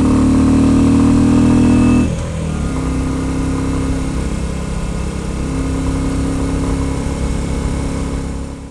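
Royal Enfield Bullet 350's single-cylinder engine running steadily under throttle, then easing off about two seconds in and running on more quietly, fading out at the very end.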